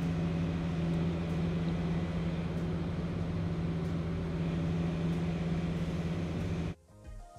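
Steady low hum with an even hiss over it while a pan of oil, spices and vinegar simmers on a gas stove; the sound cuts off suddenly about a second before the end.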